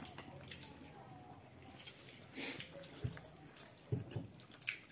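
Mouth noises of eating rice by hand: wet chewing and lip smacks with scattered short clicks. There is a brief louder wet smack about two and a half seconds in and a sharper one at about four seconds.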